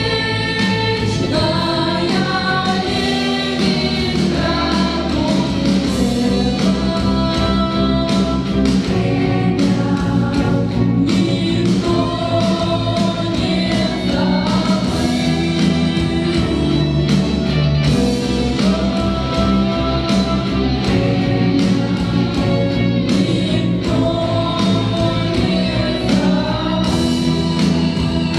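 Choir singing a song with instrumental accompaniment and a steady beat.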